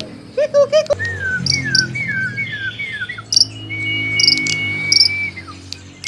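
A caged songbird singing a varied song. A short run of quick, low repeated notes gives way to a series of falling whistles, then high chips and one long steady whistle.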